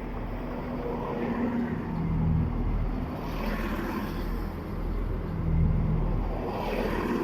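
Diesel train engine running as the train trundles slowly past, a steady low hum that swells twice.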